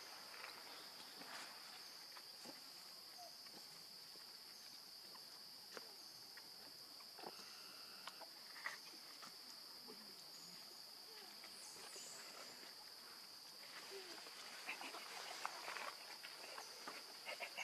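Insects droning in one steady, high, faint tone, with scattered soft rustles and clicks; near the end, denser rustling of dry leaves.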